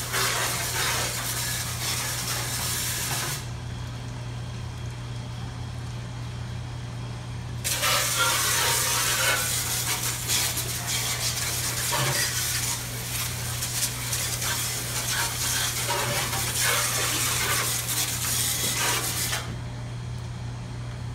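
Water from a hose spray nozzle blasting against the inside of a stainless-steel deep-fryer vat: a steady hiss of spray that stops about three seconds in, starts again about eight seconds in, and drops away near the end. A steady low hum runs underneath.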